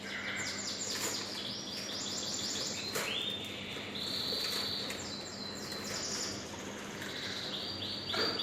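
A songbird chirping and trilling: quick runs of short downward-sweeping high notes, broken by a few held whistles.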